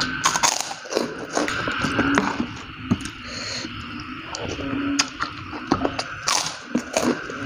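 Close-up crunching of a crisp white tapioca cracker (kerupuk) being bitten and chewed, with irregular sharp crunches, the loudest about a third of a second in and again near the end.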